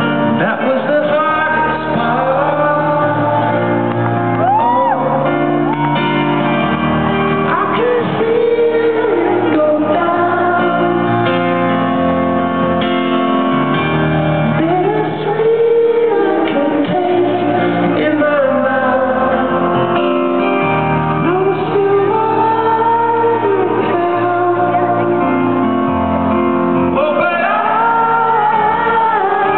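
Live rock band playing a slow song, a singer at the piano singing the lead, heard from the crowd in a large arena with the hall's echo and audience voices mixed in. The recording sounds dull and muffled, its highs cut off.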